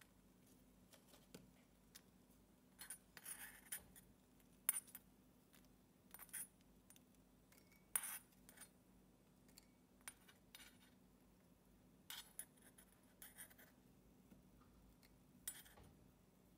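A tiny spatula scraping and tapping against a miniature wok while scooping out popped popcorn, with light clinks from a small steel bowl. The sounds are faint and scattered, a short scrape or clink every second or two.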